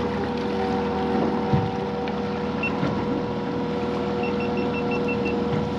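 Honda outboard motor running steadily with a level hum, under the wash of wind and water. A single short high beep, then a quick row of about seven short high beeps near the end.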